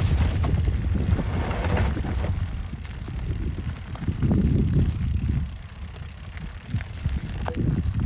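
Mountain bike riding over a rough trail: a heavy rumble with the bike rattling and knocking over bumps, easing off after about five seconds to lighter scattered clicks.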